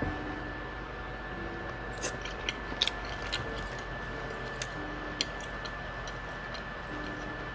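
Close-up eating sounds from a first bite of mac and cheese: chewing and mouth noises with a scattered run of sharp little clicks about two to five seconds in. A faint steady high tone runs underneath.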